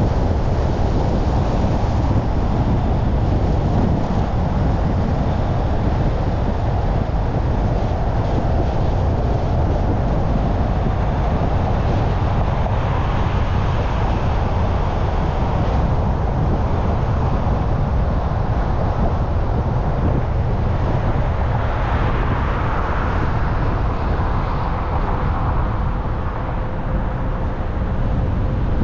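Car driving along a city street: steady low road rumble with wind noise on the microphone. The hiss swells briefly a little past two-thirds of the way through.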